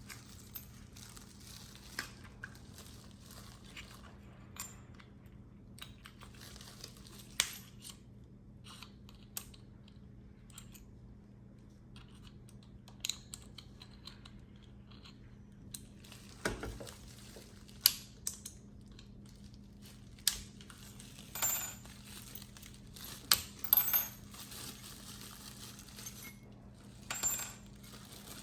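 Small metal drill bits and accessories from a cordless drill set clinking and clicking as they are handled, in scattered separate knocks with several louder ones in the second half.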